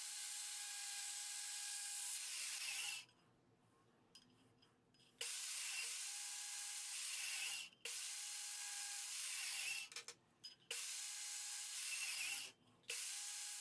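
Portable bandsaw running, its blade cutting through a carbon fiber sheet with a steady, low hiss and a faint whine. It comes in short stretches that cut off suddenly into dead silence several times.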